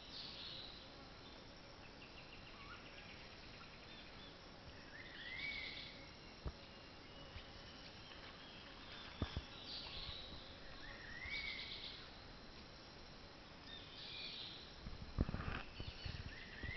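Forest birds calling quietly, one repeating a short rising call about every three seconds among higher trills, over a faint steady insect hum. A few sharp clicks fall in the middle and near the end.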